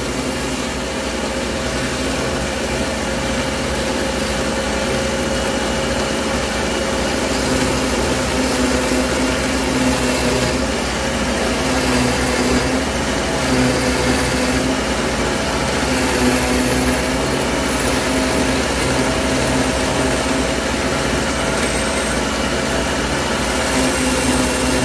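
Taurus 3 ring saw running, its diamond-plated ring blade grinding through thick fused dichroic glass as a pendant design is carved. A steady mechanical whine whose tone wavers and shifts as the glass is pressed into the blade.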